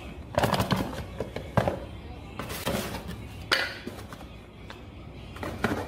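Cardboard box being shaken to get out something stuck inside, with irregular knocks and rustling from the box and its packaging. Background music plays underneath.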